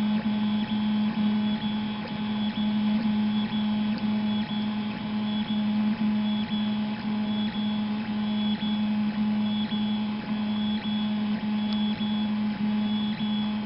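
3D printer running: its stepper motors give a steady low hum, with a high whine that comes and goes in short spells as the axes move, and light ticking.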